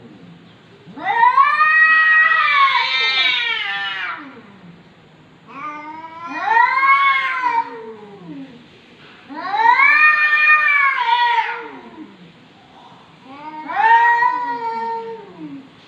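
Two cats in a nose-to-nose standoff, yowling: four long, wavering caterwauls, each two to three seconds, rising and then falling in pitch, with short gaps between. This drawn-out yowling is the warning call of a territorial face-off between cats.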